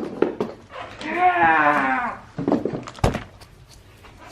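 One long, wavering cry, falling slightly in pitch, from about a second in to just past two seconds, with a few sharp clicks and a knock around it.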